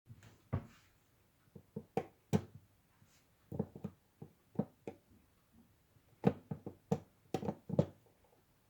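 Irregular clicks and light knocks of a plastic projection alarm clock being handled, coming in small clusters and stopping near the end.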